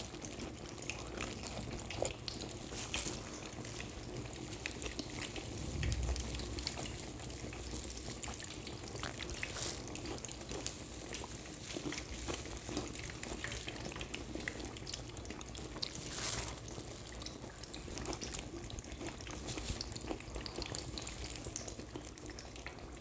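Gram-flour-battered naan (naan pakora) frying in hot oil in a pan: a steady sizzle with scattered crackles and pops, and a low thud about six seconds in.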